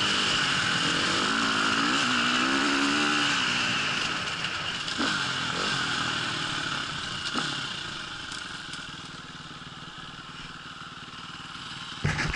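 Dirt bike engine running on a trail ride, its revs rising and falling under changing throttle, then easing off about four seconds in to a quieter low run, with a couple of knocks as the bike goes over bumps. A sudden louder burst of engine noise comes near the end.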